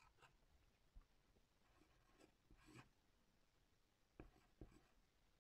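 Pencil writing on paper laid over a wooden surface: faint scratchy strokes, with a sharp tick about a second in and two louder sharp ticks a little after four seconds in.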